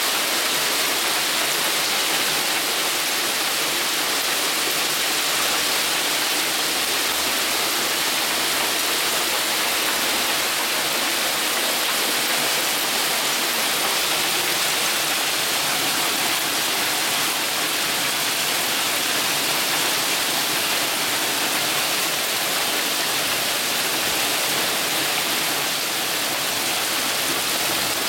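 Hailstorm: hail and heavy rain pelting pavement and parked cars, a steady, dense hiss.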